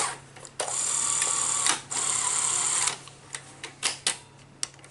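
Sony SL-HF400 Betamax deck's tape mechanism running in two whirring spells of about a second each, each stopping abruptly, followed by a string of short sharp clicks.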